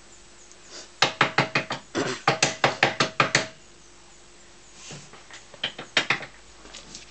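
A rapid run of sharp knocks, about five a second, lasting some two and a half seconds, then a few scattered knocks about five to six seconds in.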